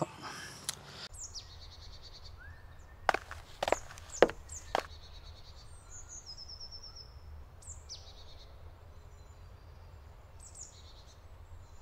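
Small birds chirping and calling, with short high notes and falling whistles scattered throughout. A few sharp knocks come about three to five seconds in, over a low steady rumble.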